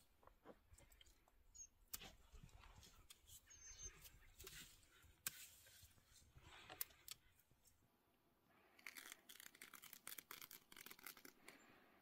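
Faint scratching and scraping of a hand cultivator working loose soil in a raised bed, then, in the second half, a dense rapid crinkling of black plastic sheeting being spread out.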